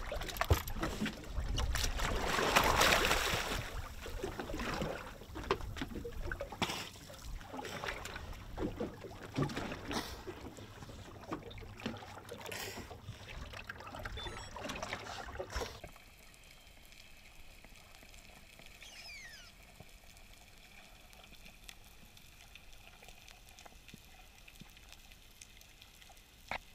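A snorkeler goes off the side of a boat into the sea with a loud splash about two to three seconds in, followed by irregular water splashing and sloshing. About sixteen seconds in, the sound drops suddenly to a quiet, muffled hush.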